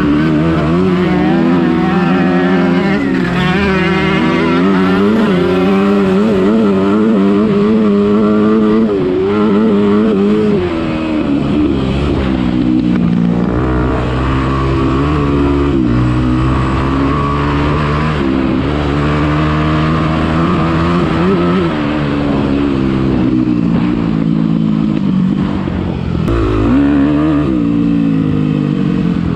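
Dirt bike engine being ridden hard, its pitch climbing and dropping again and again with throttle and gear changes.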